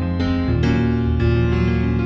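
Keyboard music from the film's score: sustained piano chords with new notes struck one after another and a deeper bass note coming in about half a second in.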